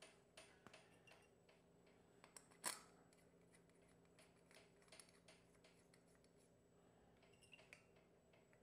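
Near silence with faint, scattered metal clicks from bolts being run down by hand into the cover. There is one sharper click about three seconds in.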